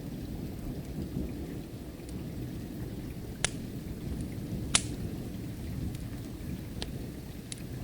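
Wood fire crackling, with a few sharp pops, the loudest about three and a half and nearly five seconds in, over a steady low rumble of rain and distant thunder.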